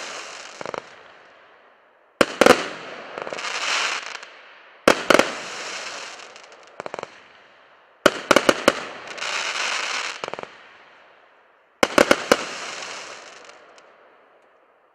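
Compound firework cake firing its shots: four volleys of two to four sharp bangs, about three seconds apart, each followed by a couple of seconds of fading hiss from the bursting effects. The last volley dies away near the end.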